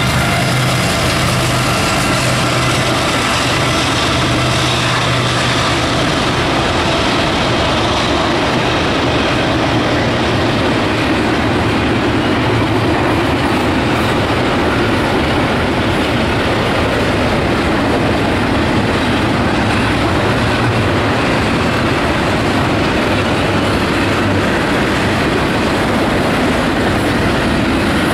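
A CSX diesel freight locomotive passes with its engine drone audible for the first several seconds. It fades into a long string of double-stack container well cars rolling by, with a steady rumble and clatter of wheels on rail.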